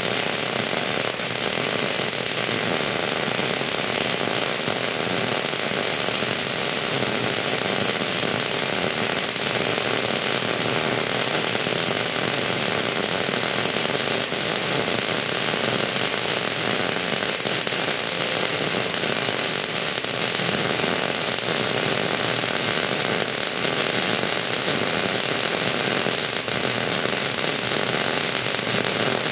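MIG (gas metal arc) welding arc burning continuously as a bead is laid on plate: a steady, unbroken sizzle that does not let up.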